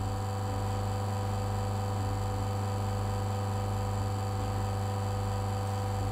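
Bezzera Duo espresso machine's pump humming steadily as an espresso shot extracts.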